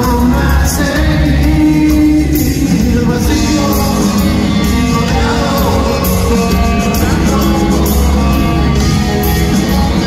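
Live rock band playing, with electric guitars, drums and upright double bass under sung vocals.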